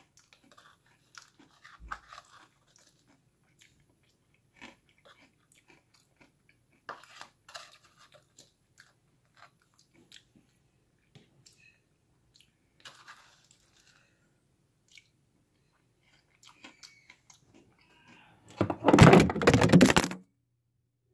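Crunchy chewing of a mouthful of crushed Takis and Flamin' Hot Cheetos Puffs with dipping sauce, heard as scattered soft crunches. Near the end, a loud clattering rustle lasting about a second and a half as the camera falls over.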